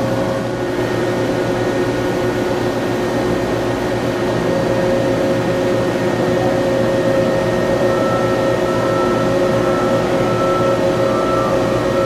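Whip Mix SinterPro sintering furnace humming steadily as its motorized lift raises the tray platform toward the chamber. The hum holds several steady tones, and a higher tone joins about two-thirds of the way through.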